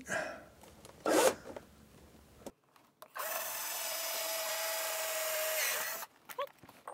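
Cordless drill boring a screw hole into a wooden shelf bracket: the motor runs steadily with an even whine for about three seconds, starting about three seconds in. A brief noise comes about a second in.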